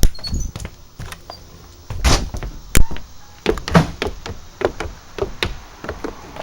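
A string of sharp knocks and thuds, about a dozen of them at uneven intervals, as a door is opened and shut on the way out.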